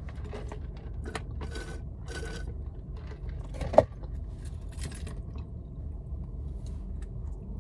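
Handling noises inside a parked car: scattered rustles and scrapes, and a sharp knock about four seconds in as a hand reaches to the centre console. A steady low cabin rumble runs underneath.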